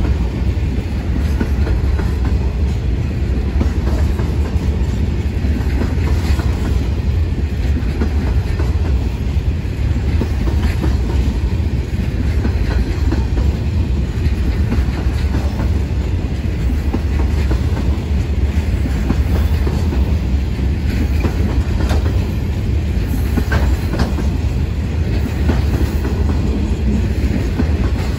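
Laden grain hopper wagons of a broad-gauge freight train rolling past close by: a steady, loud low rumble with wheel clatter and occasional sharp clicks.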